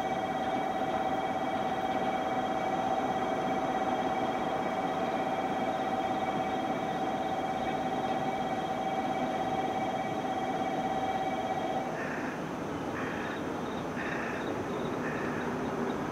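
Station platform sound as a JR Kyushu 813 series electric train draws in: a steady whine with overtones that cuts off about twelve seconds in, then short beeps about once a second, over a faint rumble.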